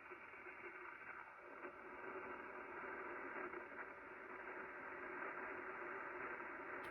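Shortwave receiver audio tuned to 4635 kHz: a steady hiss of band noise and static, cut off above about 3 kHz by the receiver's filter, with faint steady tones under it.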